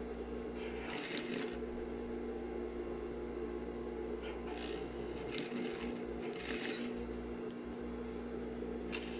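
Sewing machine motor humming steadily, with cotton gingham fabric rustling in a few short bursts as it is handled and fed under the presser foot.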